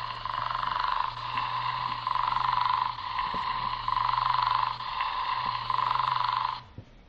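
Pomsies interactive pom-pom pet toy sounding an electronic buzzing tone through its small speaker, swelling and easing about once a second, as its reaction to being patted on the back; it cuts off near the end.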